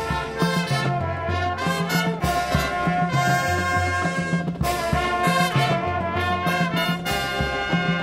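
Marching band playing: brass carrying the tune over a stepping low bass line, with drum hits on the beat.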